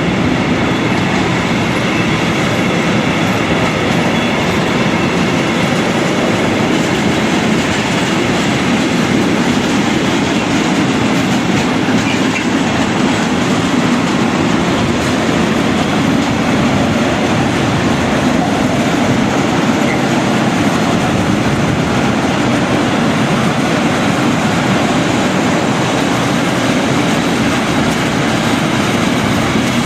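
Container freight train rolling steadily past at speed, its wheels rumbling and clicking over the rail joints.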